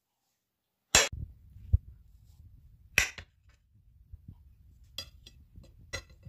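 Metal utensil clinking sharply against a ceramic plate four times as a slice of cheesecake is cut and lifted out, over a low handling rumble.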